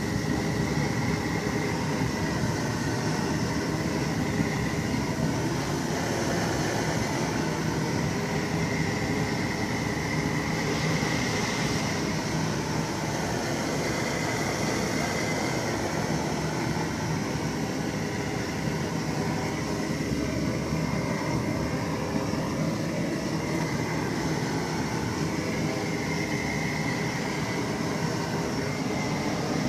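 MTZ-82 tractor's four-cylinder diesel engine running steadily after a cold start at −7 °C.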